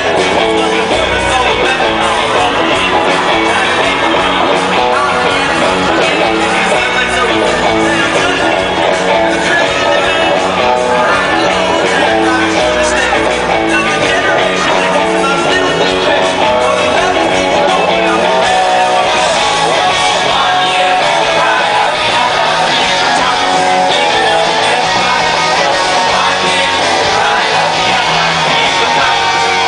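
Rock band playing live and loud in an arena: electric guitar and drums with a sung lead vocal, heard from the front of the crowd.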